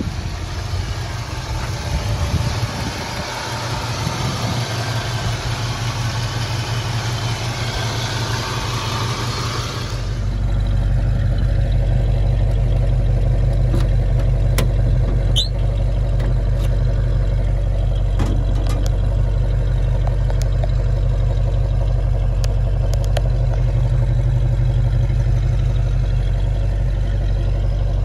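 1973 Ford Mustang Mach 1's V8 idling steadily. At first it is heard close to the open engine bay with a busy, hissy mechanical sound. About ten seconds in it changes to a deeper, steadier exhaust note. A few light clicks come in the second half.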